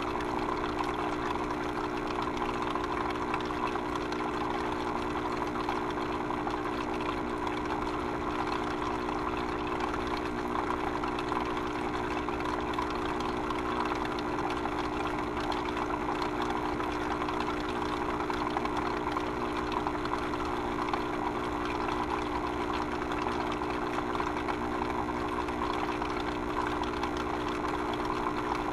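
A steady mechanical hum with a constant rush of water under it, like a pump moving liquid, with no change in pitch or level.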